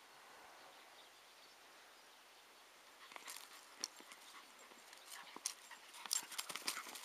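A whippet mouthing and pushing a football across grass: irregular clicks and taps start about three seconds in and grow louder and busier toward the end.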